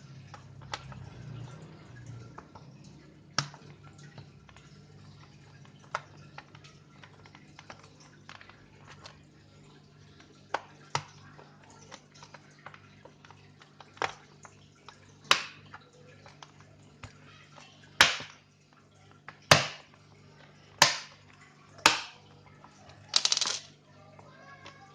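Plastic clicks and knocks of a Toshiba Satellite C40-A laptop's underside being closed back up after a RAM upgrade: scattered sharp clicks at first, then louder ones coming every second or so in the second half, with a short rattling scrape near the end.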